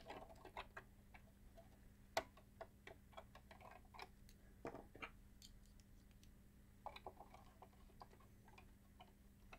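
Faint, irregular small clicks and ticks of a hand screwdriver and small screws being fitted to hold down a circuit board, with a slightly louder tap about two seconds in.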